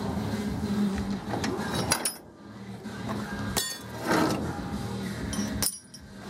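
Stick welding on a steel trailer frame: the electrode arc crackles with a low electrical hum, stopping briefly about two seconds in and again near the end, with a few sharp metallic clinks.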